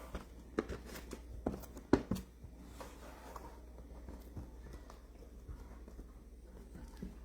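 Hands handling cardboard boxes and packaging: scattered light taps and knocks, busiest in the first two seconds, then sparser, over a low steady hum.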